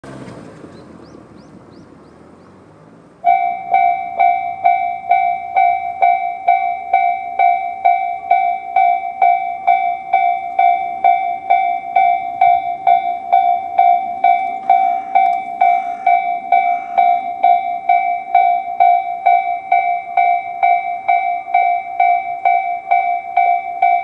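Tobu Railway electronic level-crossing warning bells (Tobu 'sound C' type) start about three seconds in and ring steadily at about two strokes a second, warning that a train is approaching. Before they start, a car is heard driving off over the crossing.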